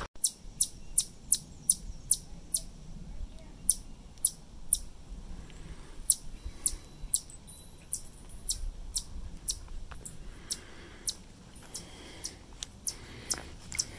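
A trail runner's footsteps on rocky ground: sharp, evenly spaced clicks, about two to three a second, with the pace of the stride.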